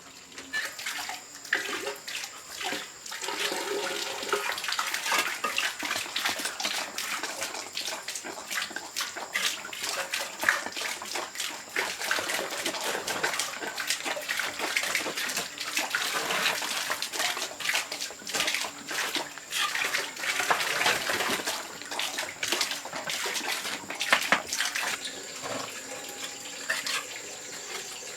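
Water splashing and pouring, a continuous wash of noise broken by many small irregular splashes.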